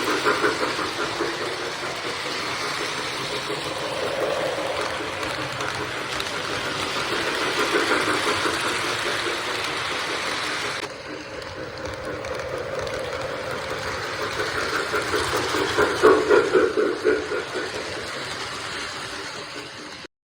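Freight train rolling past: continuous wheel-on-rail running noise with a pulsing rattle. The sound changes abruptly about eleven seconds in and cuts off just before the end.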